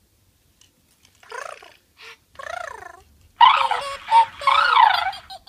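Furby toy chattering in its high-pitched electronic voice, with short warbling sounds at first and a louder run of gibberish chatter in the second half.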